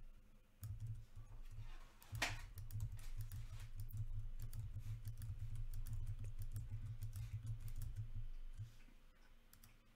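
Typing on a computer keyboard: a fast, uneven run of key clicks over a low pulsing rumble. It stops about a second before the end.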